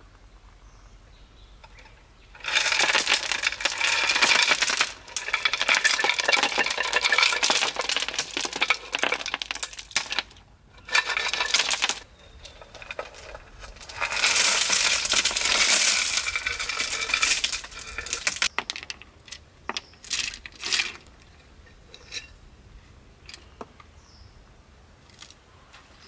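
Small rounded pebbles tipped from a bowl into a concrete pond basin, clattering in several long rushes of many stone-on-stone clicks, then a few scattered clicks near the end.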